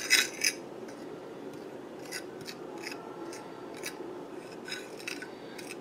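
Flour and cornmeal being mixed by hand on a ceramic plate: short crisp scrapes and rustles at an uneven pace, the loudest near the start.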